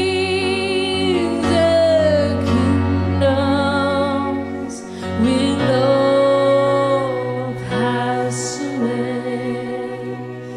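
Slow worship music: a woman sings long held notes with vibrato, gliding between pitches, over steady sustained instrumental chords.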